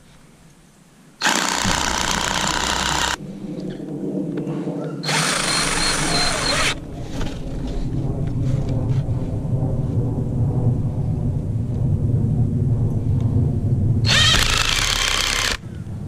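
Cordless drill driving screws into wooden boards. It runs in short high-pitched bursts about a second in, about five seconds in and near the end, with a longer, lower-pitched run through the middle.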